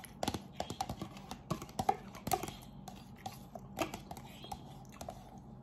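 Metal fork clicking and scraping against the inside of an instant noodle cup in quick, irregular taps as the last noodles are scooped out.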